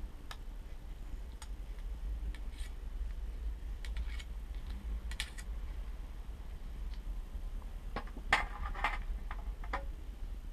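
Scattered light clicks and clinks of metal parts and tools being handled while a bike rear shock is serviced, with a quick cluster of clinks about eight seconds in, over a steady low hum.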